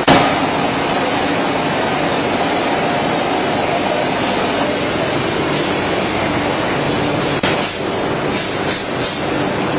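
Veneer splicing machine running: a steady mechanical noise with a sharp knock at the start and a faint whine that fades out over the first four or five seconds. About seven seconds in comes a clack, followed by several short high hisses.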